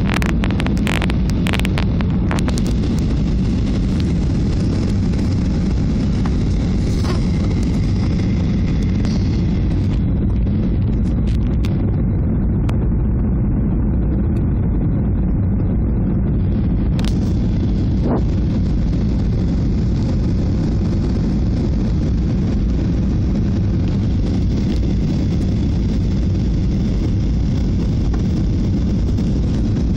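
Steady roar of airflow and jet engines inside the cabin of a Boeing 737 descending on approach to land, with a few clicks near the start.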